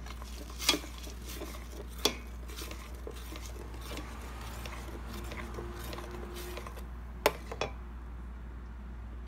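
A metal spoon stirring tomato purée in a stainless steel pot, scraping softly and knocking against the pot four times: once near the start, once at about two seconds, and twice close together near the end.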